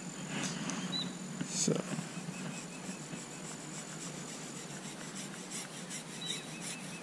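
Thin braided fishing line rasping as it is drawn through the slit felt tip of a black marker to colour it black. There is a short soft knock about two seconds in, and near the end a run of faint ticks at roughly four a second.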